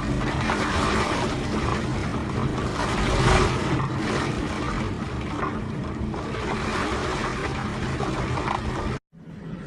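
Typhoon storm noise: wind buffeting the microphone over surging floodwater, a loud continuous rush that cuts off abruptly about nine seconds in.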